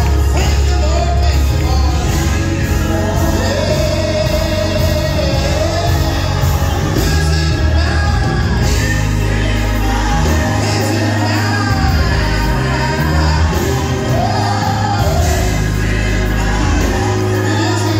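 Live church worship music: a band playing with singing over held bass notes that change every second or so.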